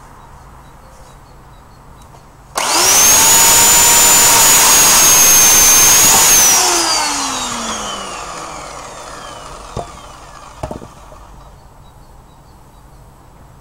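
Corded electric chainsaw switched on with an instant start, running at a steady high whine while cutting a log for about four seconds, then released and spinning down, its pitch falling away over several seconds. Two short knocks follow near the end.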